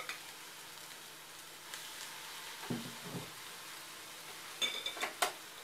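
Kefir pancake batter frying in hot vegetable oil in a frying pan: a steady sizzle. There is a click at the start, a short rattle in the middle and a few sharp clinks near the end.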